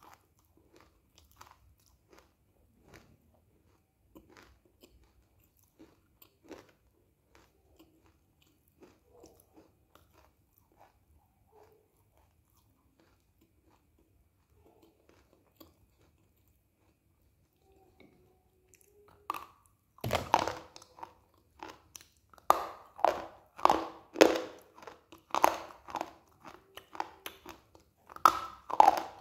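Mouth sounds of someone eating a brittle white chalk-like stick. At first there are only faint, scattered chewing clicks. From about two-thirds of the way in come loud, sharp, crunching bites one after another.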